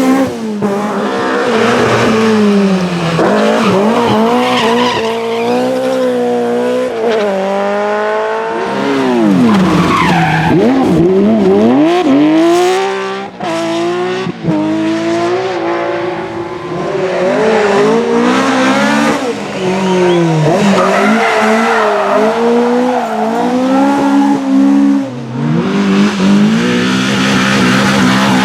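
Rally car engines at full throttle, revving up and dropping back again and again as they shift gears, with one car passing close by with a sweeping drop in pitch. Tyres skid and scrabble on the stage surface.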